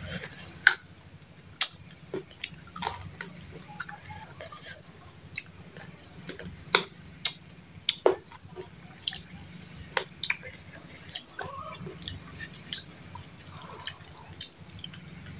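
Close-up eating by hand: irregular wet smacks and clicks of chewing and of gnawing chicken bones, over a low steady hum.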